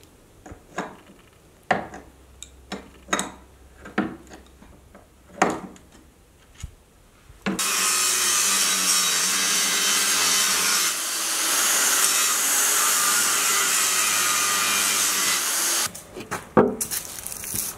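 A few scattered metal knocks and taps, then an angle grinder starts up about halfway in. It grinds steel around the welds on the hub of a manure spreader's spinner disc, cutting the welds so the hub can be pulled out. It is a loud, steady grinding noise for about eight seconds, cuts off, and is followed by a few more knocks.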